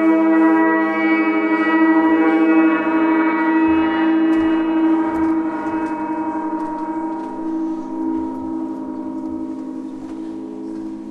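Gong ringing on with a dense, many-toned sustained ring that holds steady at first and slowly fades from about three seconds in.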